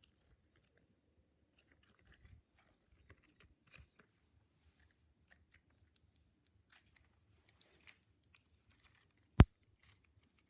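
Pink glitter slime being played with by hand: faint scattered crackles and small pops, with one sharp, much louder pop about nine seconds in.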